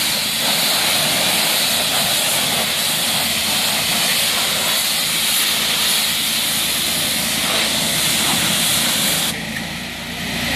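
High-pressure water jet from a wash wand hitting a car's body panels, a steady loud hiss. It eases off about nine seconds in.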